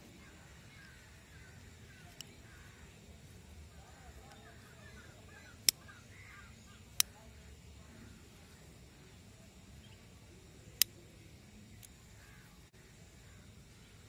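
Three loud, sharp clicks a second or several apart, with two fainter ones, over faint bird calls and a low background rumble.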